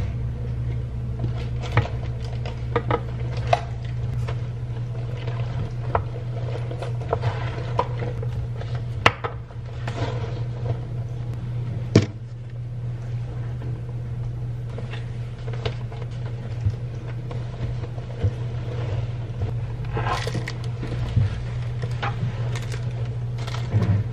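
Scattered clicks and light knocks of objects being handled, over a steady low hum.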